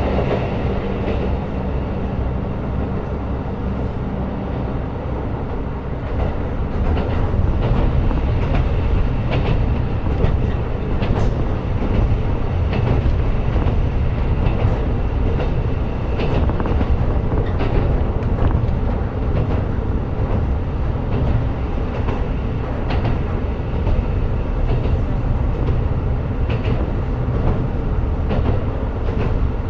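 KiHa 125 diesel railcar running along the line: a steady low rumble of engine and wheels, with many light clicks of the wheels over rail joints. A steady engine tone drops out about four seconds in, and the running noise grows a little louder from about seven seconds.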